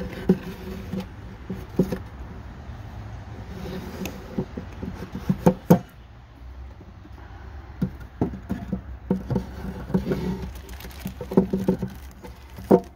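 Wooden hive frames knocking and clattering against each other and the wooden box as they are lifted and set in place: irregular sharp knocks, a cluster of loud ones about halfway and more near the end, over a low steady rumble.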